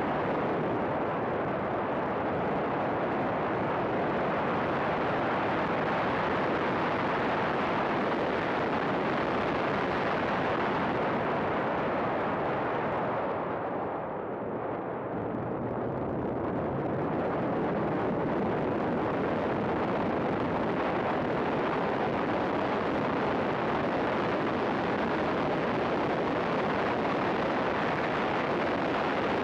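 Race car at speed heard from an onboard camera: a dense, loud blend of engine and wind noise. It eases off about halfway through as the car slows for a corner, then builds back up as the car accelerates hard.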